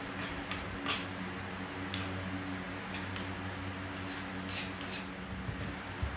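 Kitchen work sounds: about seven short, sharp clicks and scrapes at irregular intervals over a steady low hum.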